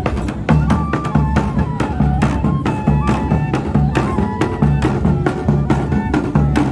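Banda de pífanos playing: cane fifes carry a stepping melody over a steady beat of zabumba bass drum and snare-drum strokes.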